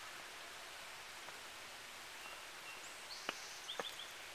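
Quiet outdoor ambience: a steady faint hiss, with a few short high chirps and a couple of sharp clicks in the last second or so.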